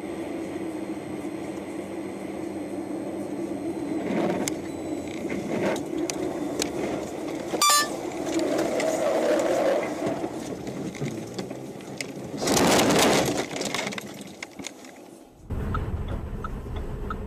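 Car interior driving noise recorded by a dashcam: a steady engine and road drone, with a sharp click about halfway through and a loud rush of noise lasting about a second near the end. The sound then cuts to a different car's low cabin rumble.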